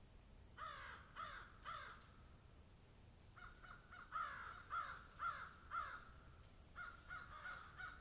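Crows cawing in three runs: three caws about half a second apart, then a run of six or seven caws, then four more near the end.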